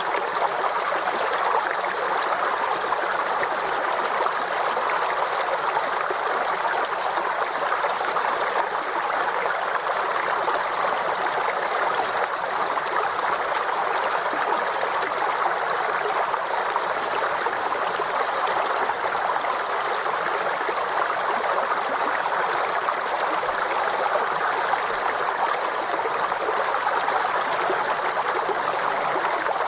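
Forest stream flowing steadily, an even, unbroken rush of water.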